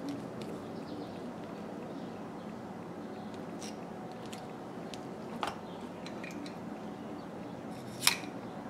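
Small metallic clicks and taps from brass terminals and a pair of pliers being handled over paper, against a steady low background hum. The sharpest click comes near the end.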